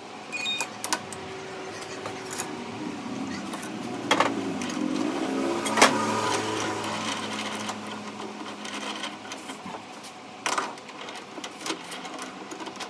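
Metal clicks and knocks from tools and parts being handled, with a machine running steadily for a few seconds through the middle.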